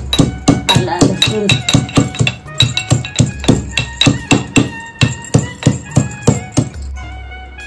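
Steel pestle pounding ginger and garlic in a steel mortar, about three ringing metallic strikes a second, stopping shortly before the end.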